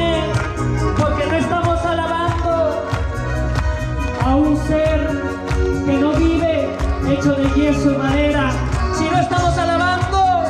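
Live praise music from a church band: a wavering, vibrato-laden melody line over heavy bass and a steady drum beat.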